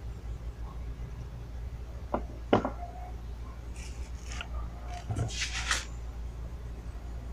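Handling noises on a workbench: two sharp knocks about two seconds in as the small metal lump is put down, then scraping and rubbing as a hand grips and turns a large black stone on a paper-covered bench, over a steady low hum.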